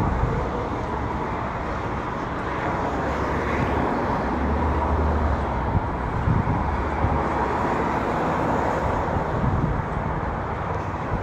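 Steady hum of road traffic, with short gusts of wind buffeting the microphone.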